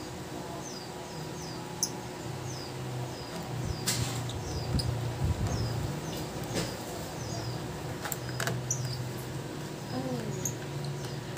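A small bird chirping over and over, short high chirps that slide downward, one after another less than a second apart. A few sharp clicks come from tools working on the open laptop, over a low hum.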